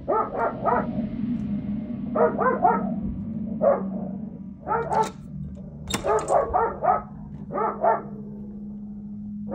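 A dog barking over and over in short runs of a few barks at a time, with brief pauses between runs, and a low steady hum underneath.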